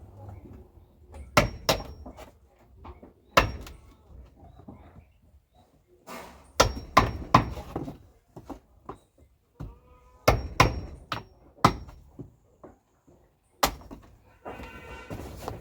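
Hammer striking a steel chisel into the wooden floor boards of a goat pen: about a dozen sharp knocks in irregular clusters, some with a brief metallic ring. Goats bleat about ten seconds in and again near the end.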